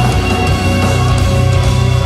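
Live instrumental progressive metal: two eight-string electric guitars and drums play loud, dense riffs with a heavy, fast-pulsing low end, heard from the audience.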